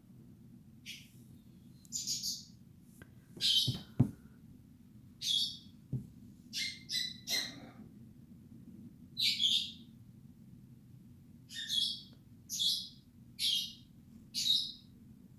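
Small birds chirping: about a dozen short, high chirps at irregular intervals. A sharp knock about four seconds in is the loudest sound.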